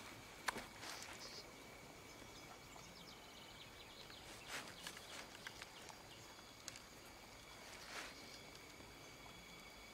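Faint woodland ambience: a steady high insect drone with a few short bird chirps, broken by scattered faint rustles and a sharp click about half a second in.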